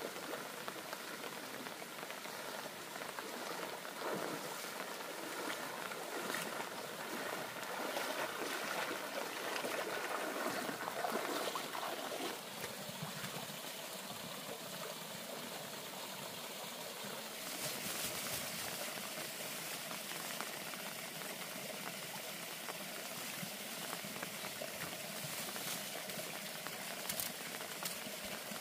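Steady trickling and splashing of running water, with small scattered ticks and drips.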